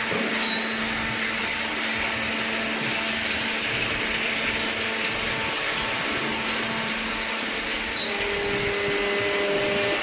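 Machinery in a waste-paper baling plant running steadily: an even rushing noise with a constant low hum, and a second steady tone joining about eight seconds in.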